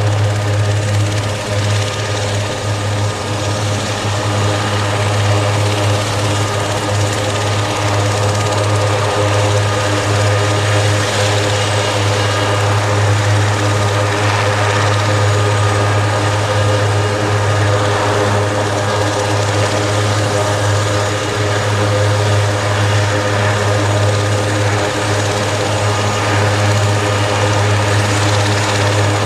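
Aerospatiale AS332L1 Super Puma helicopter running on the ground with its rotors turning. Its twin turboshafts give a steady whine over a constant low rotor hum.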